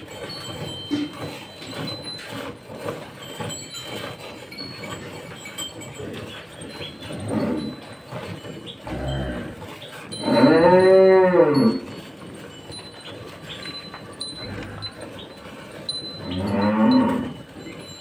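A cow mooing: one long moo about ten seconds in that rises and then falls in pitch, and a shorter, softer moo near the end. In between, the steady squirting of hand-milked streams into a steel bucket.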